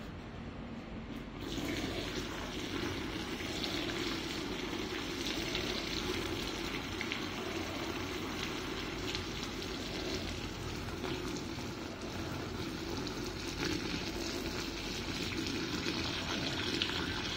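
Hot water poured in a steady stream from a metal pot into a plastic bucket of laundry, splashing onto the cloth; the pour begins about a second and a half in.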